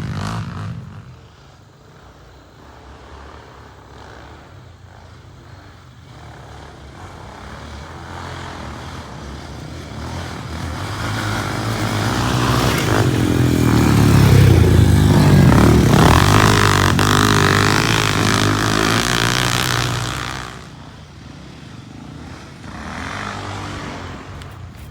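Off-road racing engines on a dirt track: one machine's engine grows louder as it approaches, passes close at full throttle about halfway through with its pitch shifting, then fades away, leaving more distant engines running.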